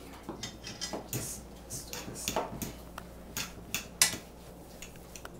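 Hands kneading a thick mashed-potato dough in a metal pot, with irregular clinks and knocks of the pot as it is worked. One sharper knock comes about four seconds in.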